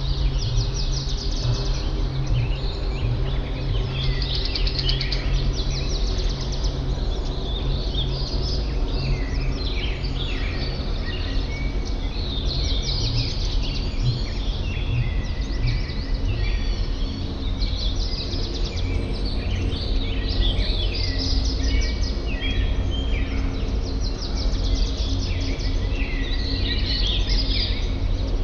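Many songbirds calling and singing at once, with overlapping chirps and rapid trills throughout. Underneath is a steady low background hum.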